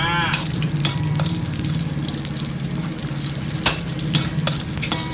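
Sliced Chinese sausage (kun chiang) deep-frying in hot oil in a wok, sizzling steadily as it is stirred, with occasional sharp clicks and a steady low hum underneath.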